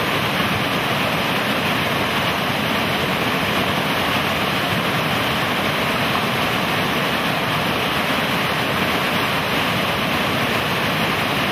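Fast river water rushing over rocks in a steady, even noise.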